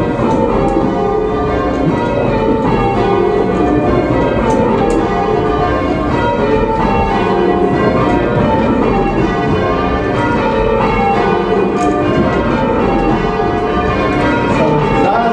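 Church bells in change ringing: the bells strike one after another in a steady, continuous stream of overlapping rings, each rung full circle by its rope.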